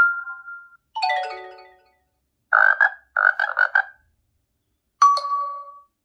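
Short tones from the Xiaomi Poco F3's built-in ringtone and notification set, played one after another with silent gaps: the tail of one chime, a falling run of chime notes about a second in, a run of short buzzy pulses in the middle, and a single ding that rings out near the end.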